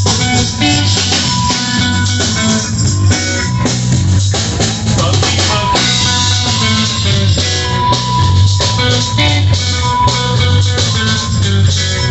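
Live rock band playing, led by electric guitar over a full drum kit with a steady, pulsing beat.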